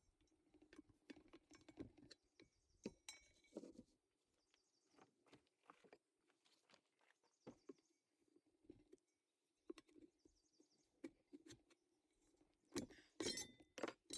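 Faint, scattered clicks and light knocks from a tractor tire being worked onto its rim by hand, with a louder cluster of knocks near the end.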